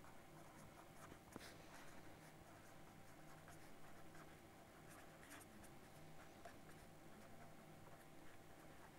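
Faint scratching of a felt-tip pen writing on paper, a few soft strokes at a time, in near silence.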